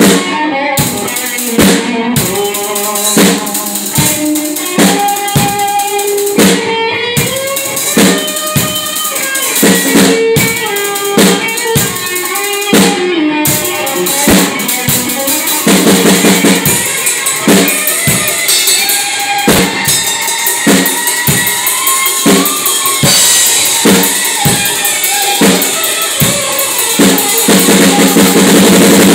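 Red Pearl drum kit played solo: kick, snare and tom hits under ringing cymbals, with very rapid rolls about halfway through and again near the end.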